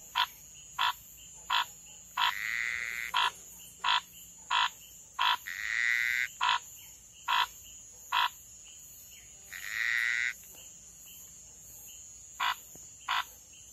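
Two male Pithecopus gonzagai monkey frogs calling during a physical clash between them: a series of short, sharp notes at roughly one every 0.7 seconds, broken by three longer notes about four seconds apart. The short notes pause for a few seconds in the second half, then start again near the end.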